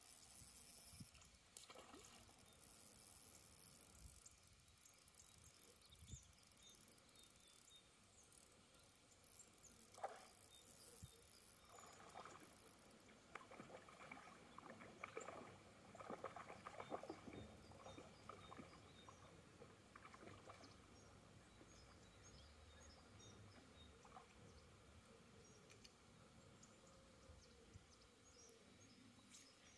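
Near silence: faint outdoor ambience, with soft rustling and a few light knocks that grow a little louder about halfway through.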